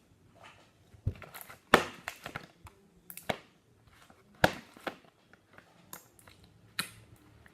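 Hands squeezing and stretching a somewhat brittle clear slime, giving a run of sharp pops and crackles, with about five louder snaps spread through.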